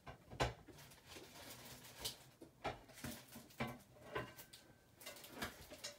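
Scattered light knocks and taps of objects being handled and set down on a craft desk, the sharpest about half a second in.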